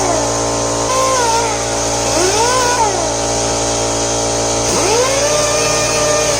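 Electric power tool running continuously with a steady motor hum. A whining tone rises and falls in pitch three times, the longest from about five seconds in.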